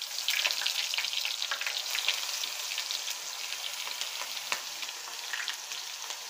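Small pieces of eggplant frying in hot oil in a pan, a steady sizzle full of fine crackling pops, busiest in the first couple of seconds after the pieces go in.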